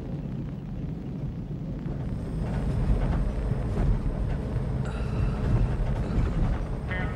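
Steady low rumble of an ambulance on the road, heard from inside the vehicle; it grows louder about two seconds in.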